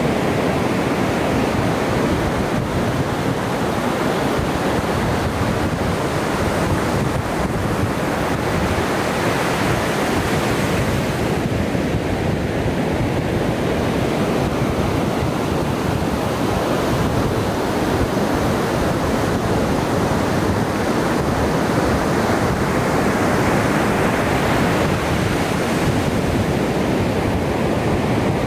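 Ocean surf breaking and washing on the shore in a steady rush, with wind on the microphone.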